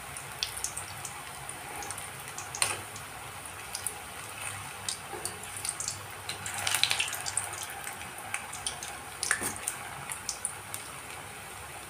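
Bread manchurian balls deep-frying in hot mustard oil in a kadai: a steady sizzle with scattered pops and crackles. A few sharper clicks come from the steel spoon touching the pan as the balls are turned.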